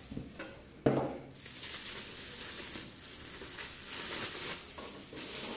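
Bubble wrap crinkling and rustling as it is handled and pulled off a boxed solar LED wall light, with a sharper rustle about a second in.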